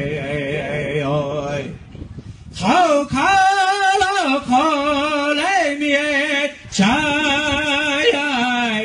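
A man singing a Lakota Kit Fox society (Tokala) song in high, wavering phrases that rise and fall in pitch, with a short breath break about two seconds in.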